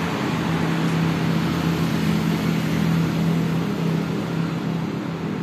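A motor vehicle engine running steadily, with a low even hum, over street traffic noise.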